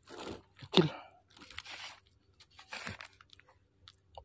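Crunching and rustling handling noise as a freshly caught fish is swung ashore on a fishing pole and grabbed by hand over dry grass. A short grunt about a second in is the loudest sound.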